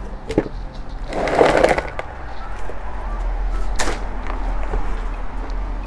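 A black plastic plant pot filled with gravelly potting mix knocks a few times on a wooden crate. The knocks are sharp and separate, and a scraping rustle of the gritty soil comes about a second and a half in.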